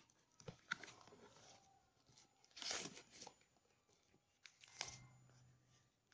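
Faint rustling and crinkling of packaging being handled: a cardboard box being opened and a plastic-wrapped, taped parcel lifted out and turned over. There are a few short rustles, with the longest crinkle about two and a half seconds in and another near the five-second mark.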